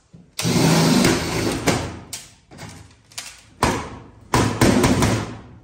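Cordless drill drilling out the rivets that hold a race car's sheet-metal nose filler panel, running in bursts: one long run about half a second in, then several shorter runs near the end.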